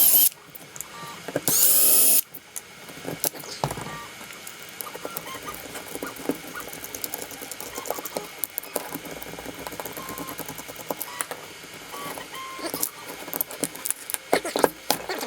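A cordless power screwdriver runs in two short whirring bursts near the start, backing screws out of a Traxxas Stampede RC truck's plastic front bumper. Then come scattered small clicks and rattles of plastic parts and screws being handled.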